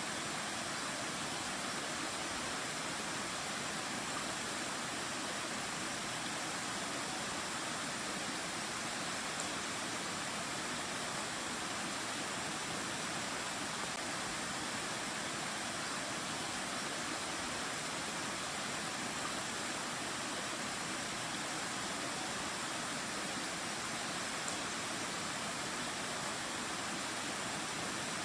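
Mountain stream water flowing and rushing over rocks in a steady, unbroken wash.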